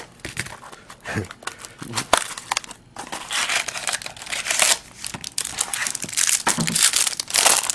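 Trading card pack wrapper crinkling and being torn open, with quick crackles and clicks as the cards are handled; the crinkling is heaviest about three seconds in and again near the end.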